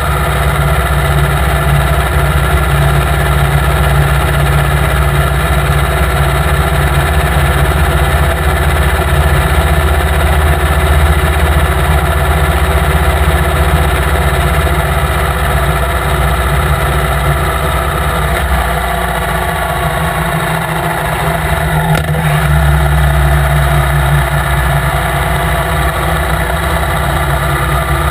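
Victory Cross Country motorcycle's V-twin engine running steadily under way, with road noise. About two-thirds of the way through the engine note drops back for a couple of seconds, then picks up again.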